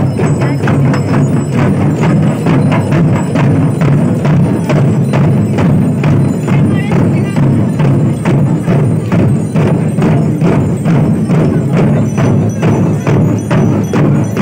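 Many large double-headed, rope-laced barrel drums beaten together by a procession of dancers, a steady fast beat of several strokes a second.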